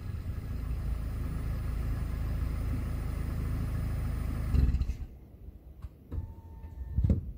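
Suzuki Swift's exhaust at the tailpipe with the engine idling steadily. A little over four seconds in there is a loud burst, then the engine sound cuts off, followed by a few short knocks and a brief beep.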